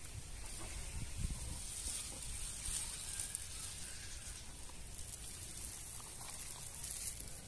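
Thin plastic bag rustling and crinkling as it is lifted off a potted seedling, over a steady high hiss.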